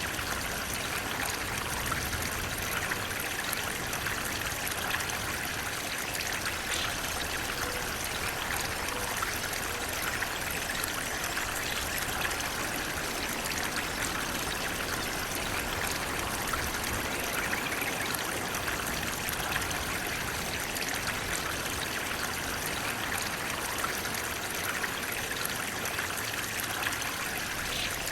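Running water flowing steadily, an even rushing sound with no pauses or changes.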